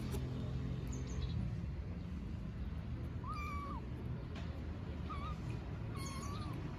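Tiny kittens meowing: three thin, short meows in the second half, over a steady low background rumble.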